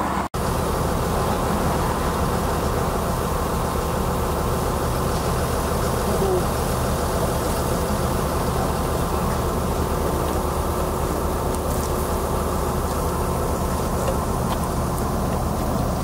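Engine of a tracked vibratory cable plough running steadily: a continuous low drone that holds the same pitch and level throughout.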